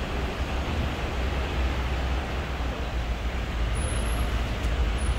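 Steady low rumble and even noise of a vehicle running, without pauses or distinct events.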